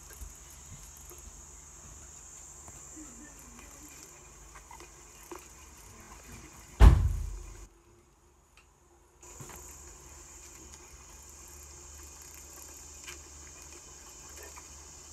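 Steady high-pitched insect chirring, with one loud, sudden low thump about seven seconds in that dies away over about a second, followed by a second and a half of near silence before the chirring resumes.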